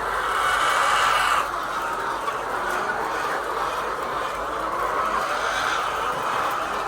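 A flock of laying hens clucking together in a continuous chatter, louder for the first second and a half.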